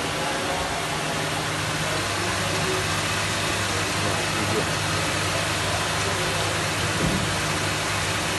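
Kerres KBW 801 combo vegetable washer running steadily: a constant rushing hiss over a low motor hum, its outfeed conveyor belt turning, with a brief low knock about seven seconds in.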